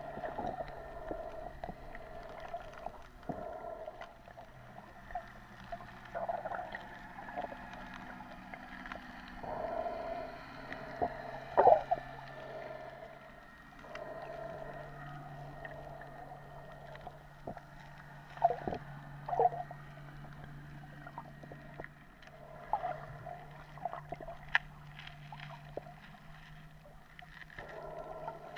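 Muffled underwater sound heard through a camera's waterproof housing: a steady low hum under a higher drone, with scattered knocks and clicks, the loudest about twelve seconds in.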